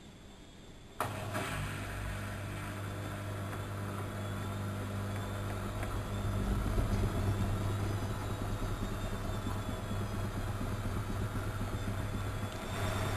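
A Studio WM26AAA washing machine's motor cuts in suddenly about a second in with a steady low hum. The running grows louder after about halfway.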